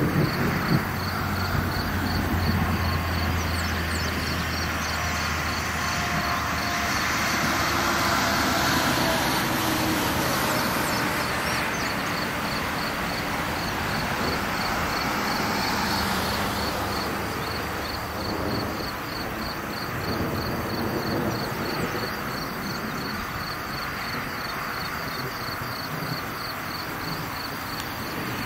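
Road traffic passing, with a low engine hum in the first few seconds and a slow swell and fade of tyre noise. A steady high-pitched pulsing chirp runs throughout.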